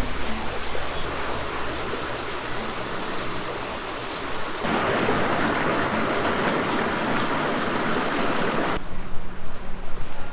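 Steady rush of flowing water. It changes abruptly twice: to a louder rush about four and a half seconds in, then to a quieter sound near the end.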